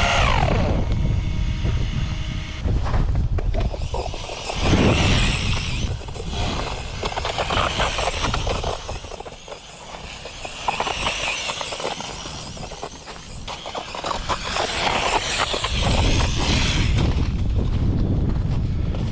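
Radio-controlled car driving over rough, wet ground: a rough running noise full of crackling clicks, with a low rumble that is heaviest near the start and end and eases off twice in the middle.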